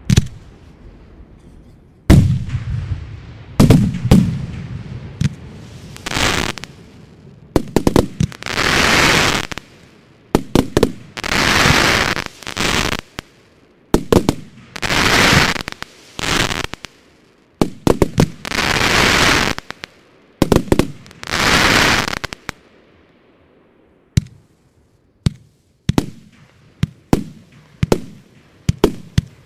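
Fireworks being fired: sharp bangs of shells and shots, with a run of loud bursts that each trail off in a second-long rushing crackle, then near the end a series of single sharp bangs about a second apart.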